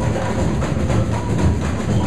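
Samba percussion group playing a fast, driving groove: deep bass drums under dense, rapid strokes on tamborims.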